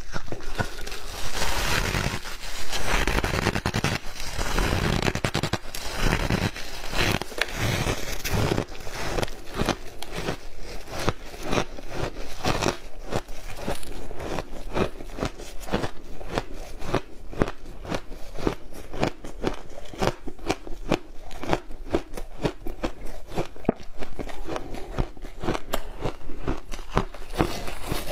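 Close-up crunching of refrozen shaved ice being bitten and chewed: a dense run of crisp crackles, loudest in the first several seconds. Near the end, gloved hands crumble and scrape chunks of the ice.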